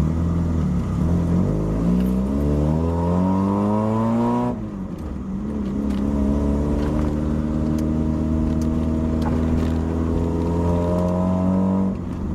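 Mazda Miata's four-cylinder engine, already warm, accelerating hard, its pitch rising steadily through one gear. About four and a half seconds in it drops sharply at an upshift, then climbs again more slowly through the next gear until a second upshift near the end.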